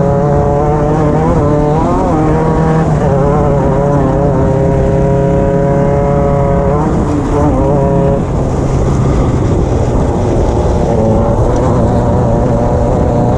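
Off-road race car engine running hard under way, heard from on board over a constant rumble of the car. The engine note holds steady for a few seconds, then drops in pitch about seven seconds in before picking up again.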